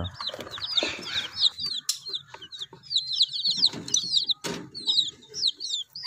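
A brood of young Phoenix long-tail chicks peeping without a break: many short, high, arched cheeps overlapping one another. A sharp knock comes about four and a half seconds in.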